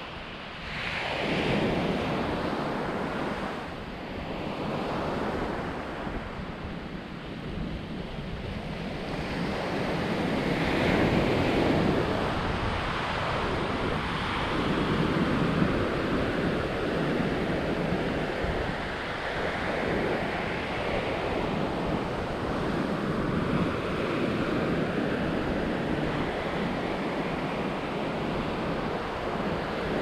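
Small sea waves breaking and washing up a sandy beach, the surf swelling and easing every few seconds, with wind buffeting the microphone.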